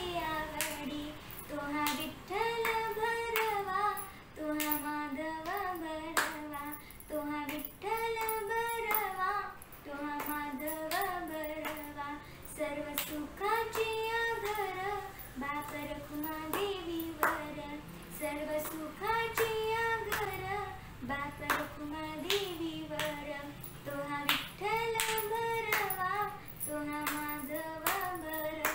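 A girl singing a Marathi devotional abhang solo, in long phrases with wavering held notes, with sharp claps spread through the song.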